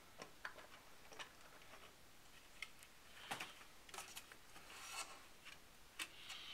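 Faint, scattered small clicks and light rubbing of a Power Mac G5 processor module being handled and lined up over its socket.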